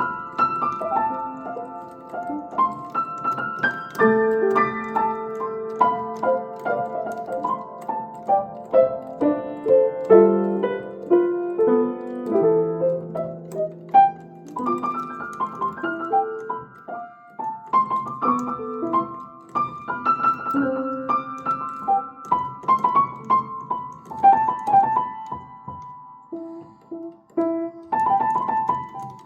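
An 1894 Kranich & Bach 7-foot grand piano being played: a continuous passage of struck notes and chords, ringing on and overlapping.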